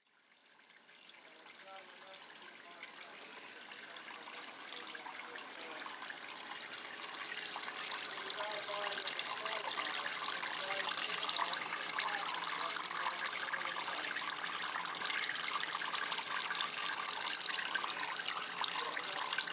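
Water trickling and splashing down a paludarium's moss-covered waterfall wall, with small gurgling drips. It fades in from silence over the first several seconds, then holds steady.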